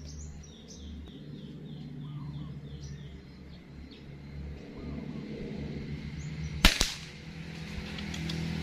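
A single sharp air rifle shot about two-thirds of the way through, a crack followed at once by a smaller snap. Before it, a quick run of short falling chirps from a bird in the grass.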